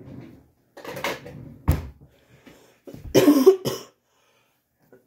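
A person coughing: a rough burst about a second in, then two harder coughs about three seconds in. A single sharp knock comes between them.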